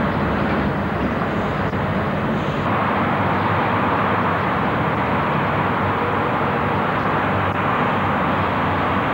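Heavy lorry diesel engines running as articulated trucks pull out of a parking area, a steady loud drone. The sound changes abruptly just under three seconds in and then runs on steadily.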